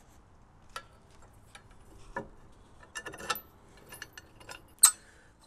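Scattered light metallic clicks and clinks from a bolt and its washers being handled and fitted into the steel mount of a front-mounted bike rack. The sharpest click comes near the end.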